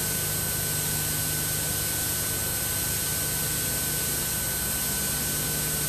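Steady hiss with a faint constant hum underneath: the recording's own background noise, with no other sound.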